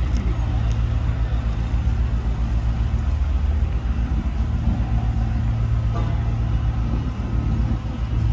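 Diesel engine of a self-propelled modular transporter, running with a steady low drone as it moves a heavy process module.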